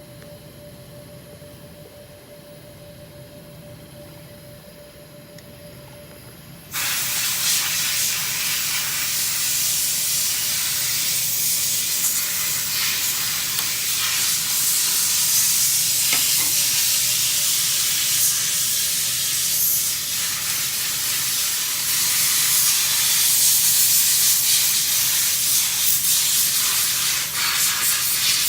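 A faint steady hum with a thin tone, then about seven seconds in a loud, continuous hiss of a pressurised jet starts abruptly and keeps going, swelling and easing slightly.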